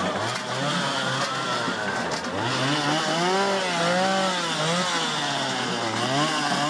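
A small engine revved up and down again and again, its pitch rising and falling about once a second.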